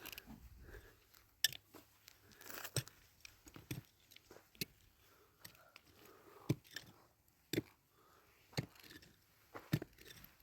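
Irregular light knocks and clicks, about one a second, with faint rustling between them, as of small objects being handled.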